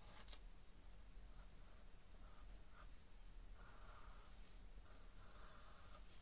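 Pencil scratching across drawing paper while sketching, faint: quick short strokes at first, then two longer strokes in the second half. A steady low hum runs underneath.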